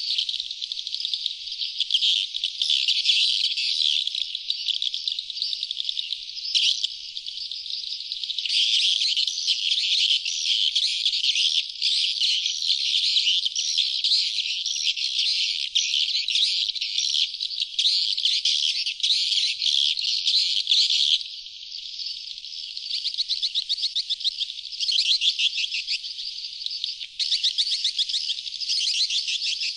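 Sriti swiftlet lure recording: many swiftlets twittering and chirping, high-pitched and continuous, with rapid fine trills. Briefly softer about two-thirds of the way through.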